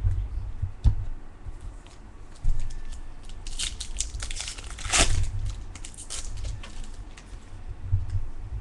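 Baseball cards and their plastic wrapping being handled: crinkling and rustling, loudest about five seconds in, with a few low knocks on the table.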